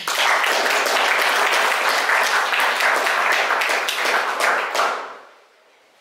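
A small audience applauding, dense clapping that starts suddenly and dies away about five seconds in.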